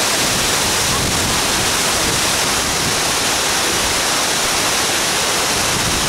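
Cusárare Waterfall's falling water making a steady, even rush.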